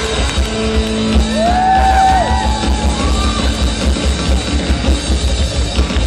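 Live rock band playing: electric guitar and bass over a fast, steady drum beat, with a held, bending melody note from about one to two seconds in.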